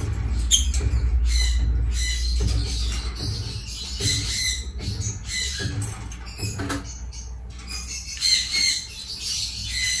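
A group of double-violet African lovebirds chirping and squawking in rapid, short high-pitched calls, with several birds calling over one another. A steady low rumble runs underneath.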